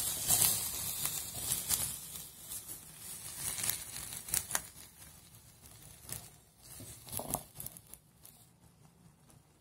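A spatula stirring and scraping cooked chickpeas around a non-stick pan: scattered clicks and rustling scrapes that thin out and fade toward the end.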